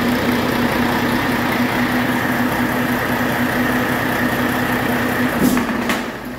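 2018 Volvo D13M 13-litre inline-six diesel engine running steadily at idle on a test run. About five and a half seconds in, its steady tone dips and the sound drops away.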